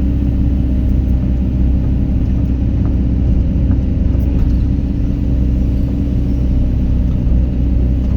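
Excavator diesel engine running with a steady, even low drone.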